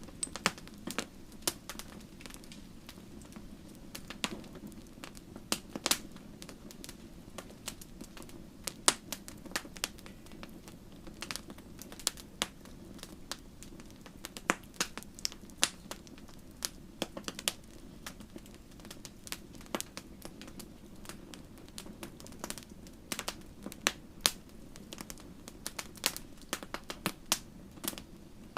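Wood bonfire crackling, with irregular sharp pops and snaps over a low steady background.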